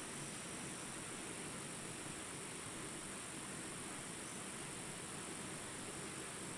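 Jungle ambience track: a small stream's rapids running in a steady rush, with a constant high hiss of insects.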